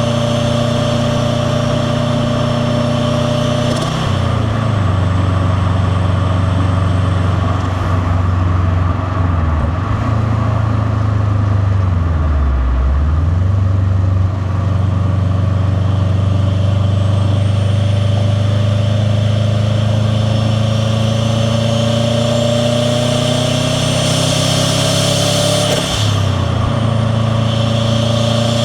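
The turbocharged flat-four of a 2001 Subaru WRX STi running under way, its exhaust note steady and loud. The pitch dips and picks up again near the middle, then slowly climbs as the car gathers speed. The engine note changes sharply with a short burst of noise about four seconds in and again near the end.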